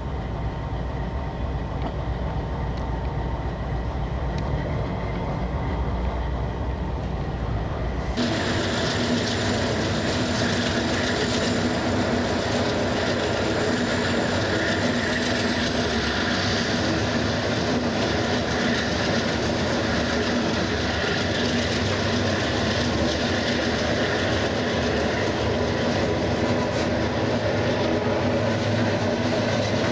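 Freight train rolling steadily, heard from a car just behind its diesel locomotives: a steady low rumble of engines and wheels on the rails. About eight seconds in, the sound changes abruptly to a brighter, higher-pitched rail noise.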